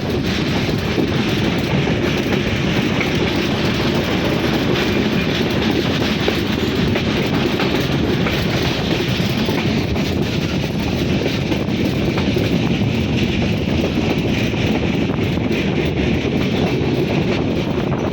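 A moving train running steadily, with continuous wheel-on-rail noise.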